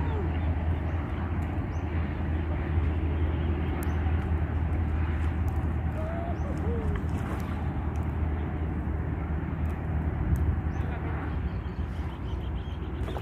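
Outdoor ambience: a steady low rumble with a few faint bird calls.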